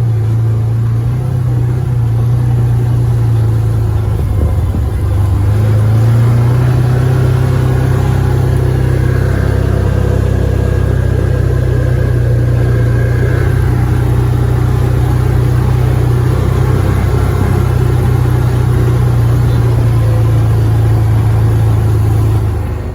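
Side-by-side UTV engine running steadily while driving, a little louder from about six seconds in.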